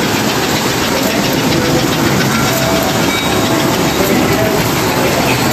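Model trains running on the layout: a steady whir of small motors and rattle of wheels on track.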